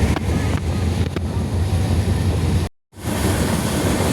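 Steady low rumble of a train moving along the platform, with a few faint clicks early on and a sudden break to silence for a moment about three-quarters of the way through before the rumble resumes.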